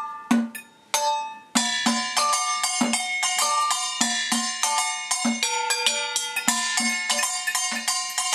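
Stainless steel mixing bowls, a small metal bowl and a coffee can tapped quickly with sticks and a paintbrush, the bowls ringing at several different pitches over a steady low thud from the can. The tapping thins out about half a second in and picks up again densely after a moment.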